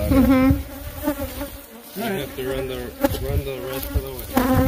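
Africanized honeybees (killer bees) buzzing close around the microphone, single bees flying past so that the buzz wavers up and down in pitch, with a louder pass near the end.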